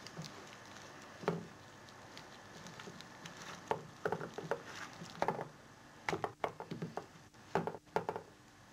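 Flour and egg white being mixed by hand into a batter around chicken breasts: scattered soft taps, knocks and squelchy rustles, sparse at first and busier over the second half.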